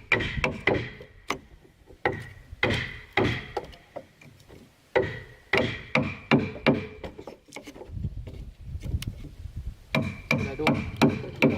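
Wood being struck repeatedly with a metal tool, in quick groups of blows separated by short pauses, several blows leaving a short metallic ring.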